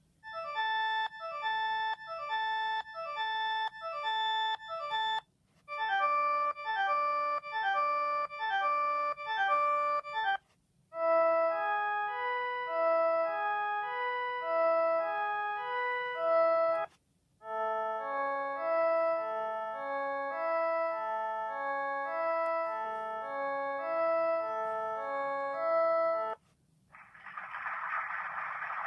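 Sony Ericsson W395 mobile phone playing its built-in ringtones through its small speaker. Four short electronic melodies play one after another, each ending in a brief gap. Near the end a hiss-like noise starts up.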